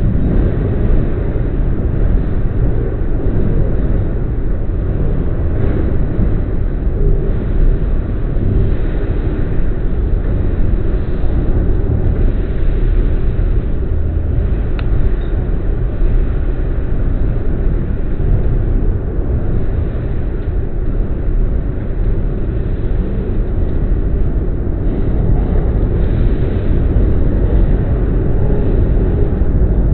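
Subway train running noise heard from inside the car: a steady low-pitched rumble of the train travelling along the track.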